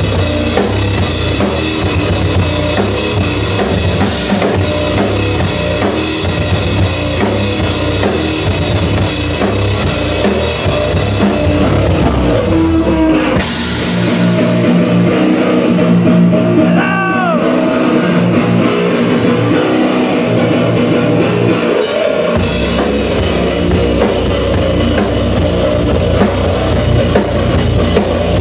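Rock band playing live: distorted electric guitar, bass and drum kit. About halfway through, the kick drum and bass drop out for around eight seconds, leaving guitar and cymbal ticks with a bending guitar note, before the full band comes back in.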